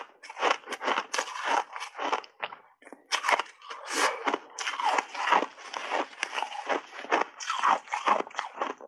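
Close-miked chewing of a mouthful of hard block ice: a quick, irregular run of loud crunches, about two to three a second.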